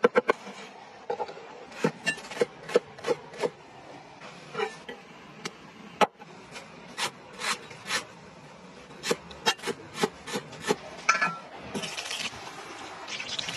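Cleaver chopping on a thick wooden cutting board: sharp knocks, a few a second, with pauses between runs. Near the end a short hiss of butter sizzling in a hot pan.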